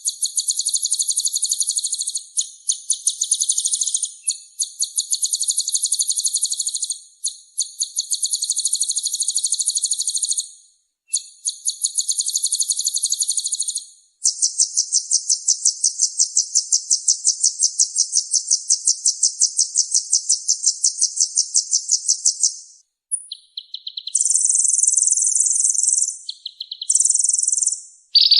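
Harsh, buzzy bird calls of the 'kasaran' kind used to tutor songbirds: rapid pulsed trills in bursts of about two seconds with short breaks, then a long, steady rattle of about eight seconds, then shorter, higher bursts near the end.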